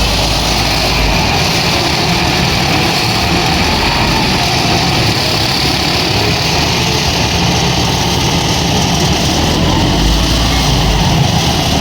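Steady running of motor-vehicle engines close by, a deep engine rumble over continuous traffic noise, with the low rumble strongest at the start and again near the end.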